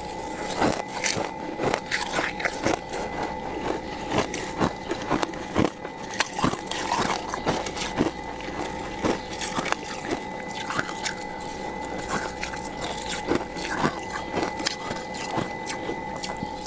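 Crunchy freezer frost being scraped: a dense, irregular run of crunches and crackles, over a steady hum.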